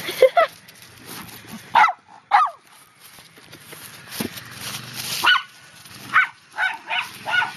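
A dog barking: about eight short, sharp barks at uneven gaps, with a single knock about four seconds in.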